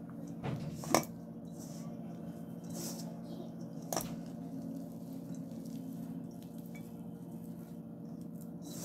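Hands mashing and mixing chopped fenugreek leaves with gram flour in a stainless steel bowl: soft rustling and squishing, with sharp clicks against the bowl about a second in and again about four seconds in, over a low steady hum.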